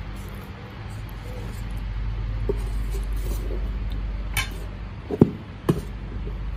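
Kitchenware knocking and clinking a few times, the two loudest knocks close together about five seconds in, over a steady low hum.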